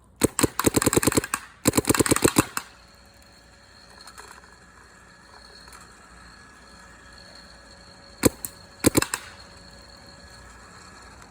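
Planet Eclipse 180R paintball marker firing two rapid strings of shots in the first couple of seconds. A few single shots follow about eight to nine seconds in.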